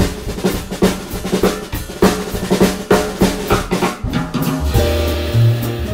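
Background music: a drum kit plays a busy pattern of snare and bass drum hits, then a bass line and held instrument notes come in about four and a half seconds in.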